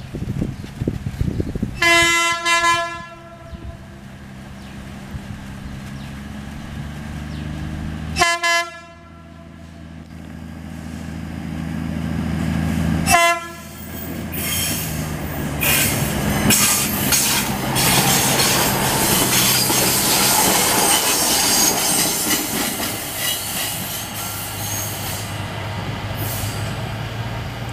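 Batara Kresna railbus sounding its horn, the semboyan 35 warning signal, three times: a blast of about a second, then two short toots about five seconds apart, over the hum of its diesel engine. From about 14 s its wheels clatter and rush along the rails as it passes.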